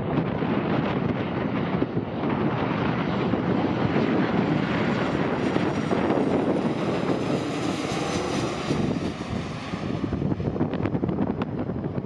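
Boeing 737 jet on landing approach with gear down, passing overhead: engine noise builds to a peak with a high whine about eight seconds in, then fades. Gusting wind buffets the microphone throughout.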